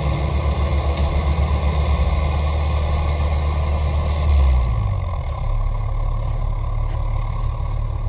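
Compact excavator's diesel engine idling with a steady low throb; a little past four seconds it swells briefly, then settles to a quieter, lower idle.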